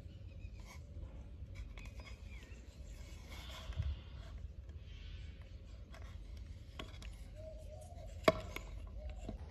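Small handling noises of a wooden model part and an electric gear motor being positioned on a painted wooden base: light taps and rubbing, a low thump about four seconds in, and one sharp click near the end.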